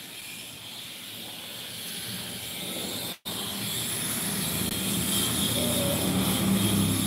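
Steady hiss, broken by a brief dropout about three seconds in; after it, louder street noise with a motor scooter riding past near the end.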